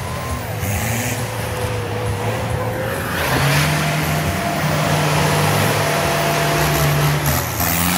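A 4x4 off-road vehicle's engine running under load, getting louder about three seconds in and holding steady.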